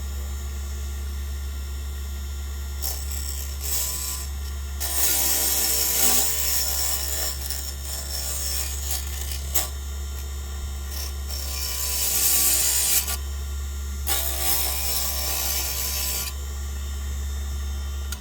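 Wood lathe motor running with a steady hum while a cutting tool scrapes the spinning wooden lure blank in several bursts, the longest about five, eleven and fourteen seconds in.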